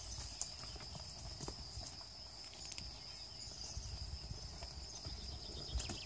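Goats foraging in dry undergrowth: scattered clicks and rustles from hooves, twigs and leaves, over a steady high-pitched whine.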